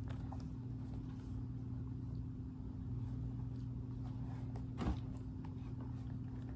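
Room tone with a steady low hum, broken by faint handling ticks and one short knock about five seconds in as a sneaker is turned over in the hands.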